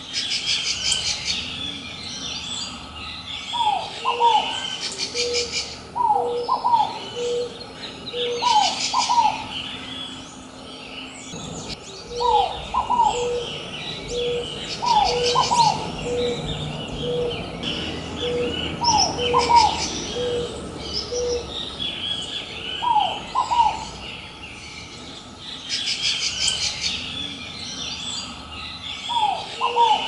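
Ruddy ground dove and scaled dove calling together. One dove repeats a steady run of short low coos, in stretches. The other gives a paired, higher call every few seconds, while small birds chirp busily.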